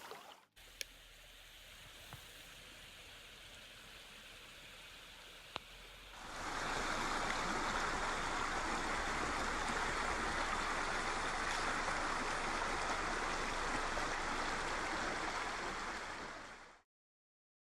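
River water flowing: a faint steady rush for the first six seconds, then a louder, fuller rush from about six seconds in, which cuts off abruptly near the end.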